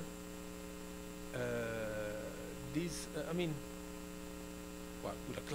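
Steady electrical mains hum. A man's drawn-out hesitation sound comes about a second and a half in, with a couple of short murmured syllables around three seconds.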